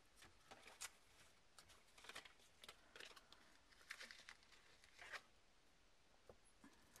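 Faint rustling and crinkling of a paper backing sheet as foam adhesive dots are peeled off it and pressed onto a kraft-paper label: a few short, scratchy crackles that die away about five seconds in.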